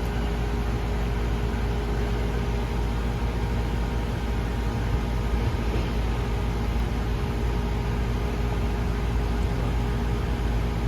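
Air-conditioning unit running steadily while its refrigerant charge is tested: compressor and condenser fan give a constant low hum with a few steady tones.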